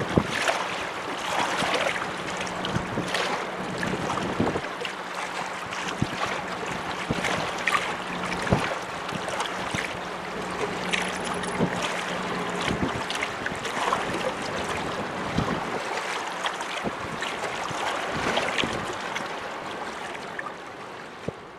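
Waves washing and splashing against jetty rocks, with wind buffeting the microphone. Under it a steady low hum runs until about three-quarters of the way through, and everything fades near the end.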